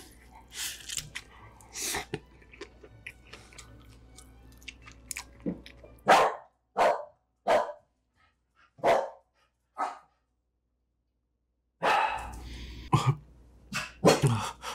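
Close-up chewing of a rice ball and chewy rice cakes, then about five sharp dog barks a little over halfway through, spaced half a second to a second apart.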